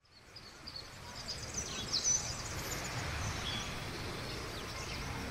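Birds chirping and whistling over a steady low outdoor ambience. It fades up from silence over the first second or two.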